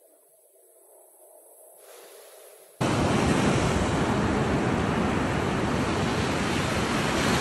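Sea surf washing up the beach with wind: a steady, loud rush of waves that starts abruptly about three seconds in, after a faint quiet start.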